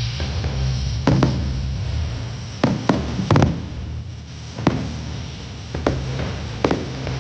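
Aerial firework shells bursting: a string of sharp bangs and cracks at irregular intervals, several coming in quick pairs, each with a short echoing tail.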